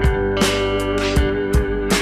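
Background music: a guitar holding a slightly wavering note over a steady beat.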